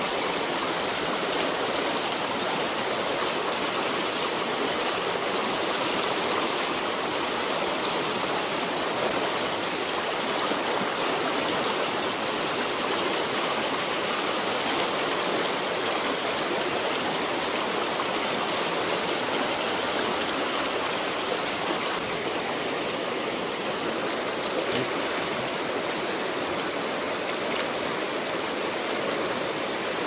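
Steady rushing of a fast river running over rocks and riffles. It drops a little in level about two-thirds of the way through.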